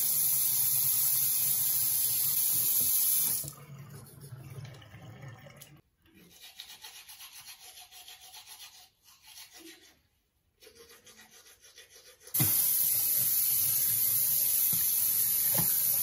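Bathroom tap running steadily into the sink, stopping about three and a half seconds in. A toothbrush then scrubs faintly against teeth for several seconds, and the tap runs again about twelve seconds in.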